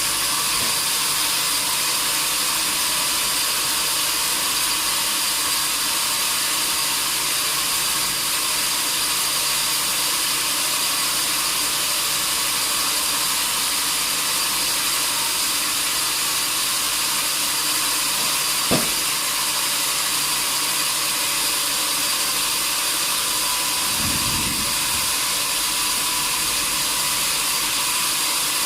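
Sawmill saw running steadily, a constant hissing noise with a faint high whine. There is a sharp click about two-thirds of the way through and a short low thump a few seconds later.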